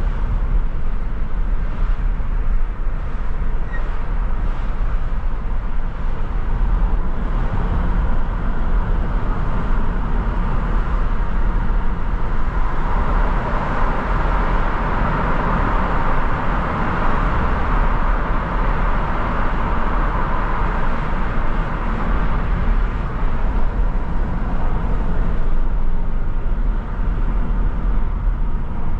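Car driving in city traffic: a steady low rumble of engine and road noise, with a hiss of tyre noise that swells through the middle and then fades.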